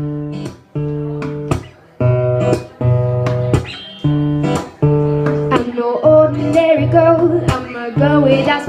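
Acoustic guitar strumming chords in a steady rhythm, with a few short breaks between phrases. A woman's singing voice comes in about six seconds in.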